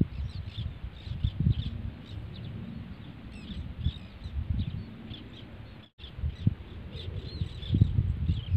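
Birds chirping in many short, high calls, over a gusty low rumble of wind on the microphone; the sound drops out briefly about six seconds in.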